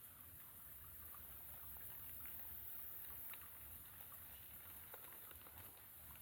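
Faint ambience: scattered small clicks and ticks over a low rumble and a steady hiss.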